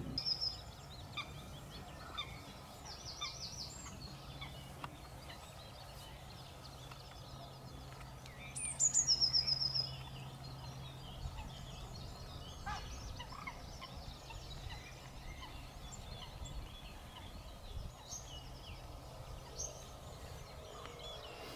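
Several small birds calling and singing, short high chirps scattered throughout, with one loud, rapid song phrase about nine seconds in that drops in pitch and then runs on as quick repeated notes. A faint low hum runs underneath.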